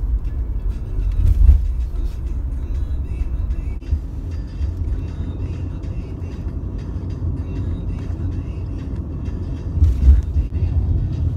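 Steady low road and engine rumble inside a moving car's cabin, with music faintly underneath and two louder bumps, about a second and a half in and near the end.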